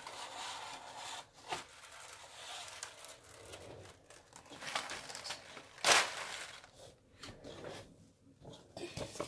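Rustling and rubbing of plastic craft boxes and packaging being handled, with a few sharp clicks and knocks, the loudest about six seconds in.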